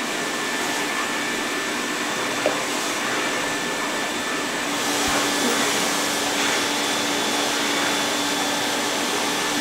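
Canister vacuum cleaner running steadily while its hose nozzle is worked over sofa cushion upholstery: the dry dust-extraction pass done before wet cleaning. About five seconds in, the note changes: a low steady hum joins and it grows slightly louder.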